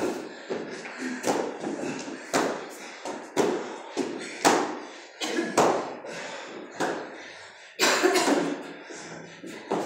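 Irregular slaps and thuds of bodies and hands hitting rubber floor mats during hand-release push-ups and air squats, about one every half second to second.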